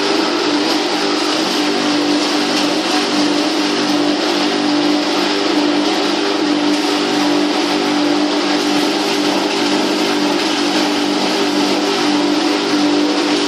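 Hammer-mill pulverizer for herbal powders running steadily: a constant hum with a hiss over it.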